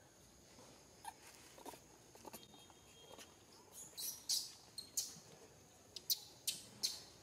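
Baby macaque squealing: a series of short, high-pitched squeaks starting about four seconds in.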